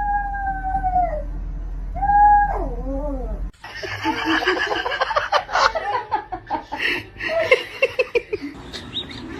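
Cat yowling: one long drawn-out call held steady and then falling, followed by a shorter call that wavers down. After a cut comes a busy stretch of knocks and clatter with short falling cries.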